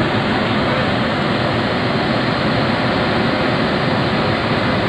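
Steady, even rushing noise from an Indian Railways WAP-7 electric locomotive, with a faint steady hum underneath.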